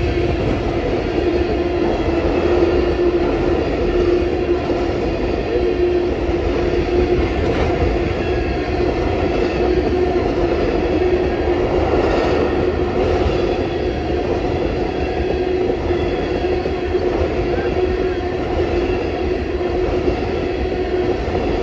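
Freight train of tank cars rolling past at speed, with a steady rumble of steel wheels on the rails. A steady tone runs under it throughout.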